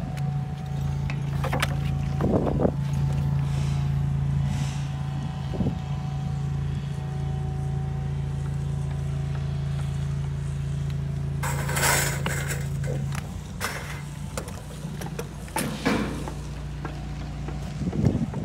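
Steady low mechanical hum of a running motor or engine, with a few knocks and a scraping rush about twelve seconds in.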